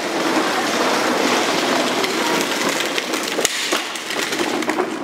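A steady rushing noise, with a few sharp clicks from plastic poultry-crate panels being handled and snapped together.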